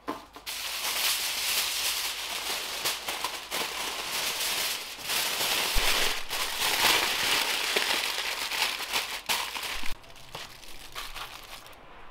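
Sheet of aluminium foil crinkling and crumpling as it is wrapped by hand around a pineapple, a dense run of sharp crackles that stops about ten seconds in.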